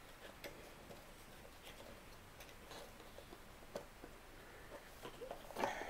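Faint scattered clicks and light scuffs of a small cardboard box being handled and its end flap opened, a little louder near the end.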